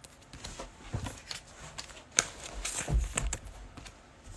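Glossy trading cards being handled and flipped by hand: a few scattered soft slides and taps of card against card.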